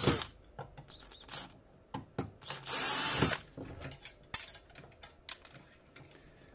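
Cordless drill-driver running in short bursts to unscrew screws from a metal radio chassis: one burst ends just at the start, another lasts under a second about three seconds in. Between them come light clicks and knocks of metal parts being handled.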